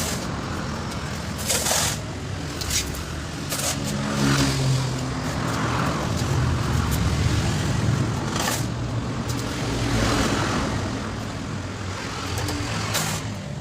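A motor vehicle's engine running steadily, its hum swelling a little in the middle, with a few short knocks or clatters over it.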